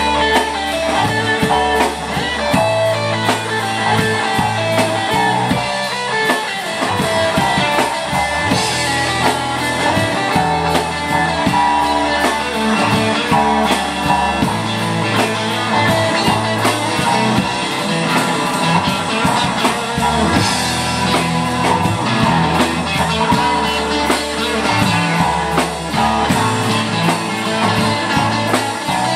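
A live rock band playing loudly, with electric guitars over a drum kit and low notes that change in blocks.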